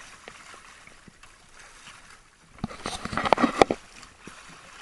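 Faint wind and water hiss aboard a small outrigger boat at sea. About two and a half seconds in comes a burst of sharp knocks and rustling lasting about a second.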